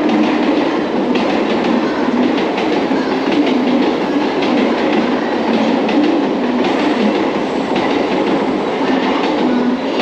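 Mumbai suburban electric local train running through the station without stopping: a loud, steady rumble of wheels with repeated clickety-clack over the rail joints.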